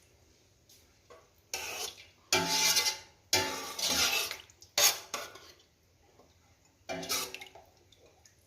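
Glasses of boiled water poured into a pot of sauce in several short pours, with clinks of glass against the pot.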